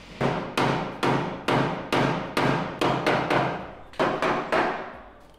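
Hammer blows on the sheet metal of a damaged pickup bed, knocking out a dent. The strikes come in a steady run of about two to three a second, with a brief pause a little past halfway.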